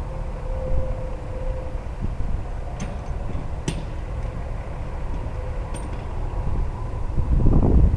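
Semi truck's diesel engine running with a steady low rumble, a few sharp clicks in the middle, and the engine growing louder near the end.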